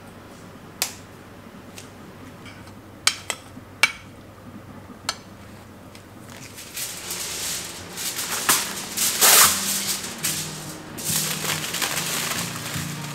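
A few sharp, separate clicks, then aluminium foil crinkling and rustling as it is handled and folded, loudest about nine seconds in. Soft background music underneath.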